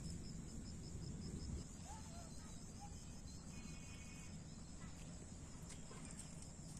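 Insects droning steadily at a high pitch over a low rumble, with a few short bird chirps about two seconds in.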